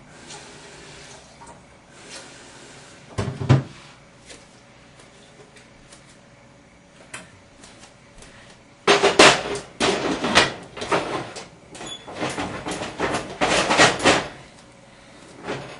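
Kitchen clatter: a pot and other cookware being handled and knocked together. A couple of knocks come about three seconds in, then a dense run of clanks and bangs from about nine to fourteen seconds.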